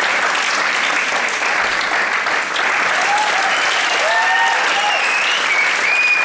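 Audience applauding loudly and steadily, with a few high cheers and whistles rising over the clapping in the second half.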